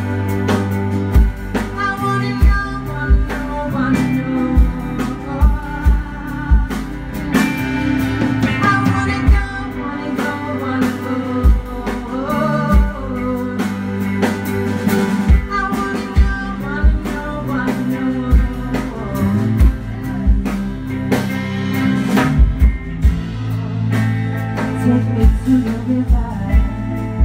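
Live blues-rock band playing: a woman singing over acoustic and electric guitars, bass and a drum kit.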